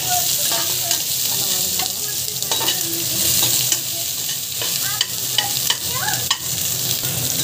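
Sliced onions and whole spices sizzling in hot oil in an aluminium pot, stirred with a perforated metal spatula that scrapes and clicks against the pot now and then.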